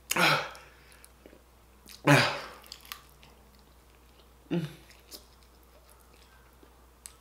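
A man's sharp, breathy exhales, three of them about two seconds apart, the last one shorter, as he reacts to the burn of very spicy fried chicken. Faint chewing between them.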